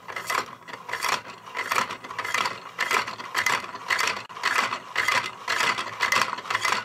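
Plastic Geneva-drive model with a linkage arm, pin and locking slide, spun quickly by hand: its plastic parts rattle and scrape in a steady rhythm of about two strokes a second as the slotted wheel is stepped round.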